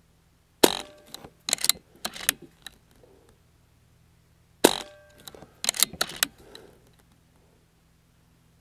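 Two shots from a .22 BARRA 1100Z PCP air rifle, about four seconds apart. Each is a sharp crack followed by a few quieter clicks as the action is worked to chamber the next pellet.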